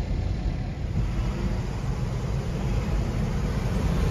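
Steady low rumble of a car driving, engine and road noise heard from inside the car.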